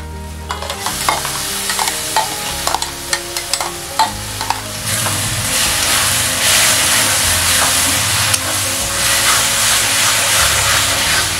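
Tomato paste frying with onions in hot oil in a wok, sizzling while a steel spatula scrapes and taps the pan as it is stirred in. The sizzle swells and gets louder about halfway through.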